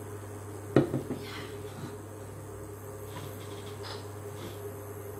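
Tableware clatter: one sharp knock about a second in, then a couple of lighter clinks, over a steady low hum.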